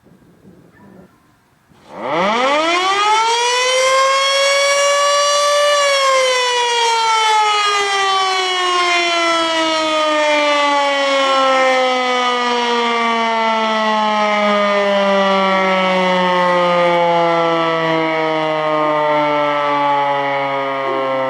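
Federal Model 7B electromechanical fire siren sounding its noon test: about two seconds in it winds up quickly to full pitch, peaking around six seconds, then winds down slowly with its pitch falling steadily.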